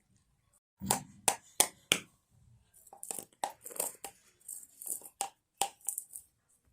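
A container rattle being shaken: four sharp rattling strokes about a second in, then irregular bursts of rattling from about three seconds in until shortly before the end.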